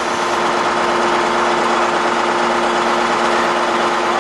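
An engine running steadily, with a constant hum over a broad rush of noise.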